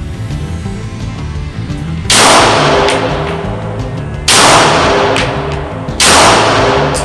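Three Glock pistol shots, about two seconds apart, each followed by a long echo inside an indoor shooting range, over background music.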